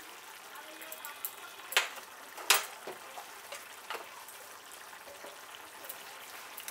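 Thick cauliflower and coconut-milk curry simmering in a pan: a soft steady bubbling hiss with a few sharp pops, the loudest about two and a half seconds in.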